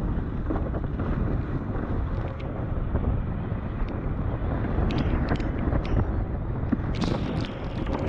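Gusty wind buffeting a board-mounted action camera's microphone while windfoiling, heard as a dense, steady low rumble. Short hissing splashes of spray come in about five seconds in and again near the end.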